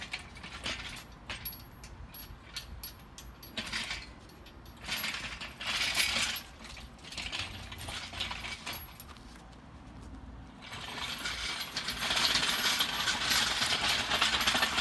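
Engine crane rolled across pavement on its steel casters, with the lifting chains and the engine hanging from them clinking and rattling. Scattered clinks and short rattles give way, about two-thirds of the way through, to a louder continuous rattle.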